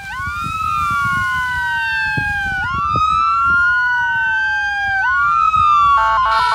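Two emergency-vehicle sirens wailing out of step, each rising and falling in pitch about every two and a half seconds. About six seconds in, a second kind of siren with stepped, switching tones joins them, over a low rumble.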